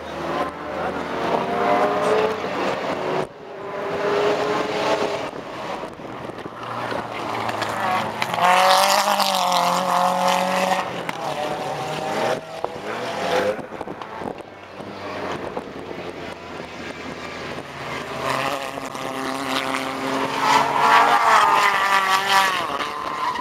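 Small historic racing saloon cars' engines revving hard as they lap the circuit one after another, the engine note rising as they accelerate and falling as they lift off, loudest about nine seconds in and again near the end.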